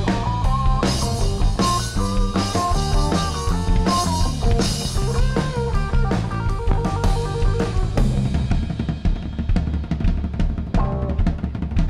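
Live rock band playing electric guitar, bass guitar and drum kit with the drums to the fore. About eight seconds in, the guitar lines mostly drop away and the drum kit carries on with fast strikes, the start of a drum solo.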